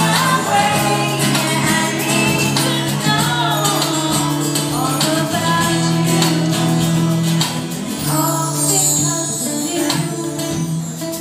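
Live song: a woman singing into a microphone over a strummed acoustic guitar.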